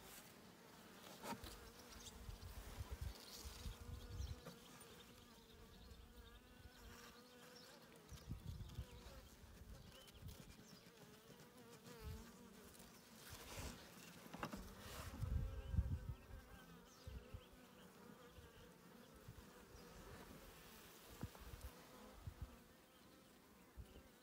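Honeybees buzzing around an opened top-bar hive: a faint, steady hum that wavers slightly in pitch. Scattered low thumps and a few clicks from handling come through, the loudest a little past halfway.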